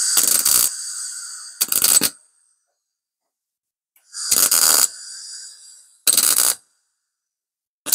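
MIG welder on CO2 shielding gas tack-welding a sheet-steel repair patch: about five short crackling bursts of the arc, each about half a second, with pauses between them. A fainter hiss fades out after the first and third tacks.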